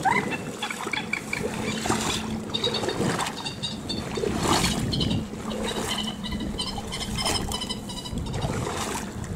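Legs wading through flooded rice-field water, sloshing and splashing with each step. Over it, high bird chirps come in short rapid runs again and again.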